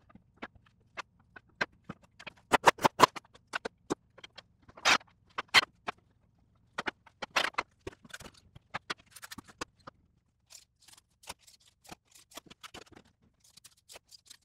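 Knocks and clacks of wooden face-frame rails and stiles being pushed together and parallel clamps being set down and slid along the frame during a glue-up. A quick run of sharp knocks about two and a half seconds in is the loudest, with fainter scraping and ticking later on.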